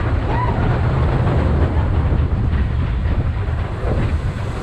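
Big Thunder Mountain Railroad mine-train roller coaster running along its track, heard from a seat on board: a steady low rumble of the cars on the rails.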